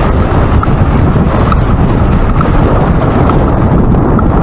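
Loud steady wind rush buffeting the microphone of a camera carried on a moving bicycle, with a few faint light ticks now and then.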